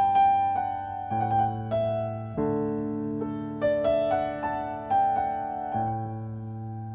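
Background piano music: held low chords that change every second or two, under a slow melody of single notes.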